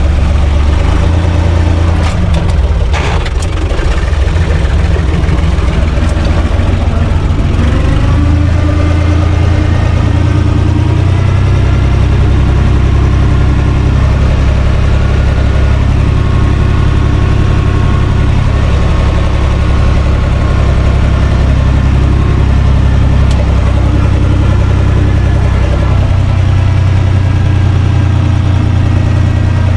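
UTB Universal 445 DT tractor's diesel engine running loud, heard from inside its cab while driving, its note stepping up and down a few times as the speed changes. A few knocks come about two to three seconds in.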